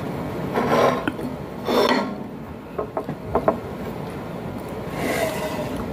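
Mukbang eating sounds: a man chewing and smacking food close to the microphone, with a few short clicks midway.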